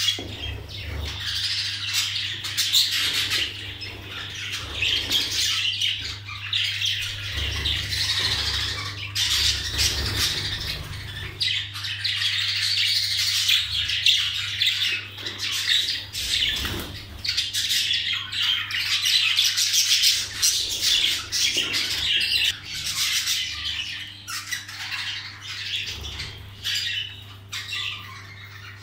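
Budgerigars calling continuously in a dense, overlapping chatter, with a steady low hum underneath.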